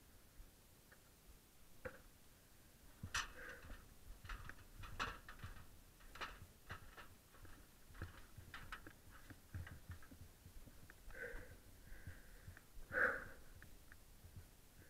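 Scattered knocks, taps and scrapes of gloved hands and feet climbing a ladder up to a zipwire platform, close to a head-mounted camera, the loudest of them near the end.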